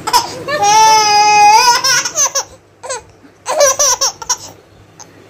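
Baby laughing and squealing: one long high-pitched squeal starting about half a second in, then a few short bursts of laughter.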